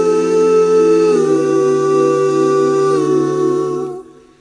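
Layered a cappella vocal harmonies holding a wordless chord, moving to a new chord about a second in and again around three seconds in, then fading out near the end.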